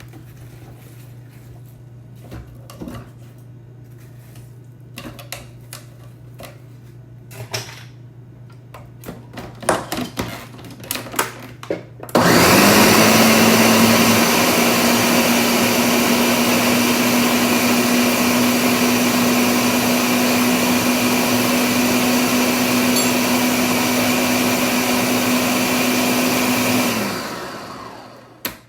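Scattered knocks and clicks as more watermelon is loaded into the blender jar. About twelve seconds in, the countertop blender's motor starts suddenly and runs loud and steady, puréeing watermelon chunks with no water added. It winds down near the end.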